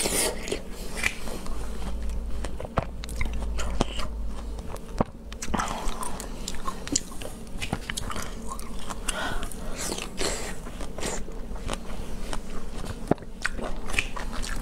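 Close-miked biting and chewing of star fruit (carambola), with many small sharp crunches through the whole stretch.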